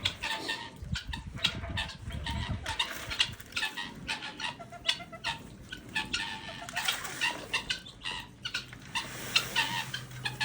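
Chickens clucking, a steady run of short calls.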